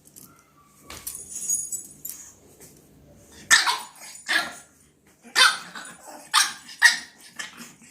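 Pug puppy barking, a run of about five sharp barks in the second half.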